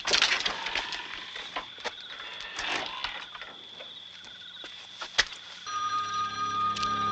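Night insect chorus, a steady high trill of crickets, with rustling and a sharp click about five seconds in; sustained musical tones of the film score come in about six seconds in.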